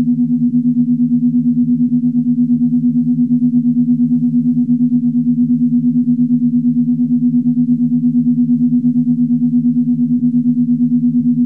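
Star Trek original-series starship corridor ambience: a low electronic hum of two steady tones, throbbing in a quick, even pulse without change.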